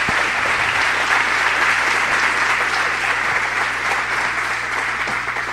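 Audience applauding steadily, beginning to die away near the end.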